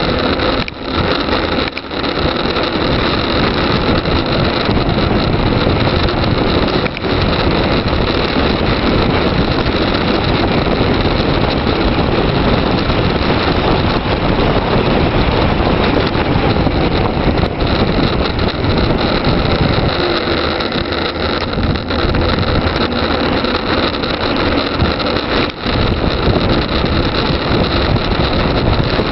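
Wind rushing over the microphone of a bike-mounted camera on a fast downhill bicycle descent: a loud, steady roar of wind and road noise.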